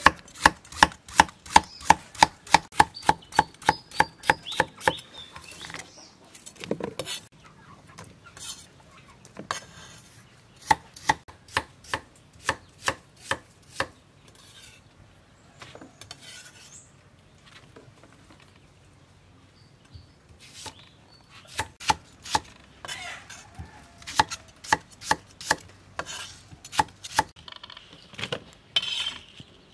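Cleaver chopping carrots into rounds on a wooden chopping block, in quick, even strokes of about four a second. The strokes turn scattered after about five seconds and settle into another steady run about two-thirds of the way through.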